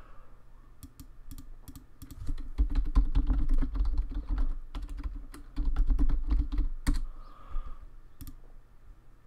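Typing on a computer keyboard: a few single keystrokes, then a quick run of clicking keys, busiest from about two to seven seconds in, thinning to a last click or two near the end.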